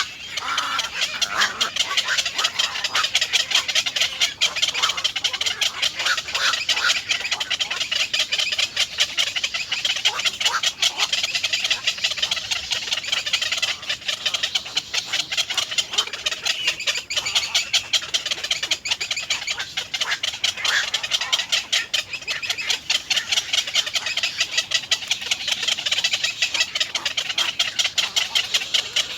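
Nestling birds cheeping rapidly and without pause in high, shrill calls: begging calls of chicks being fed.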